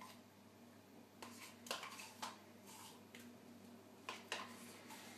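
A spoon scooping thick crème fraîche out of a plastic tub into a stainless-steel bowl: a few soft scrapes and light clicks, spread out with quiet gaps between them.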